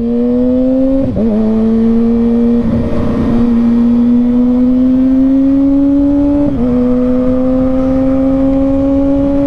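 Kawasaki ZX-6R inline-four engine pulling under throttle, its pitch climbing steadily. It dips briefly about a second in and again at about six and a half seconds as it is shifted up a gear, then climbs again.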